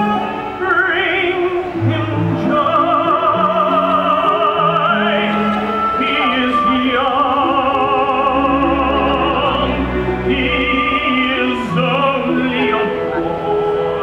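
A male tenor singing a slow ballad solo, holding long notes with a wide vibrato, over an orchestral accompaniment of sustained strings and low notes, amplified through a stage sound system.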